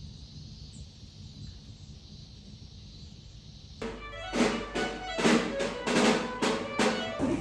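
A low steady hum, then about four seconds in music starts: a run of loud, evenly spaced accented strokes with drums and pitched instruments.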